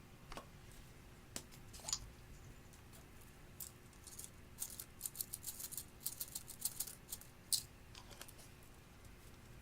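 Glossy slime being handled, giving off sharp little clicks and crackling pops: a few scattered ones at first, then a quick run of crackles from about four seconds in to near the end.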